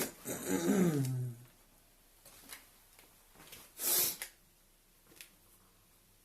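A man's short wordless vocal sound falling in pitch, then a short sharp hiss about four seconds in, with a few faint clicks between.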